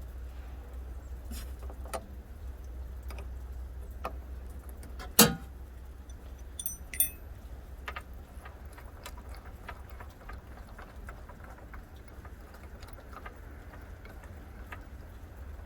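Hand wrench loosening a nut on a light mount: scattered small metal clicks and clinks, a sharp knock about five seconds in followed by a brief high metallic ring, over a steady low rumble.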